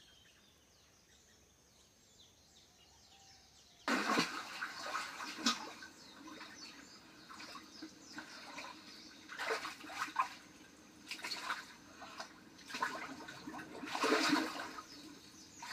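Water splashing and sloshing in an above-ground swimming pool as a person swims through it, starting about four seconds in and coming in irregular surges.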